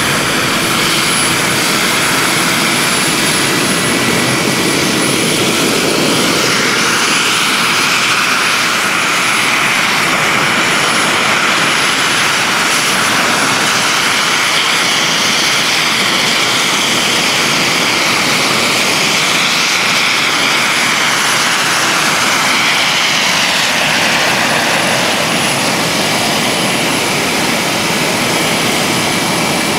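Kamov Ka-52 helicopter flying low: a steady, loud turbine whine and rotor noise, its pitch drifting slowly as it moves.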